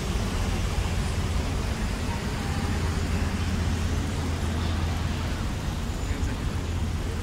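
Steady low rumble of engines and city traffic, with no sudden events.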